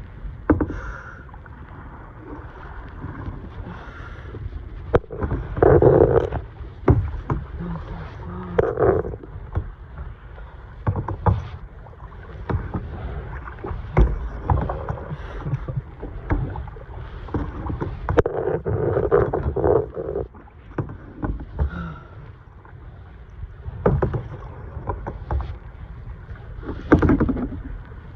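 Kayak being paddled on the ocean: irregular water splashes from the paddle blades and sharp knocks of the paddle against the hull.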